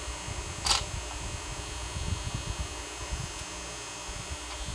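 Soft handling noises of fingers working the glued glass lens cover off an SC3 action camera, with one brief scrape about a second in.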